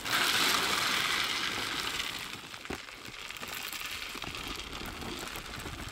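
Bentonite chips (Enviroplug Medium) pouring out of a paper bag and rattling down into the borehole around a well casing, a steady hissing rattle that is loudest for the first two seconds and then eases off. The chips are being poured to grout and seal the annulus around the casing.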